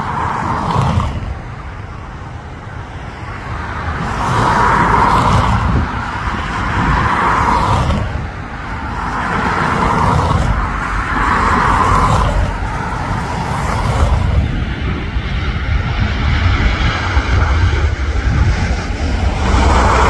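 Wind buffeting the microphone over steady engine noise, swelling louder several times.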